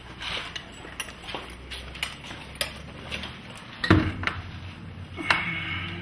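Metal hand tools clinking and knocking against the concrete floor and the door bottom while a chisel is set under a wooden garage door to lift it: scattered sharp clicks, a loud knock about four seconds in, then a metal clink that rings briefly.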